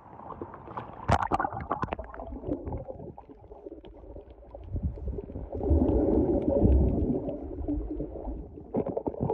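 Muffled underwater gurgling and rumbling of lake water heard through a submerged camera, with a few sharp clicks about a second in and louder rumbling a little past halfway.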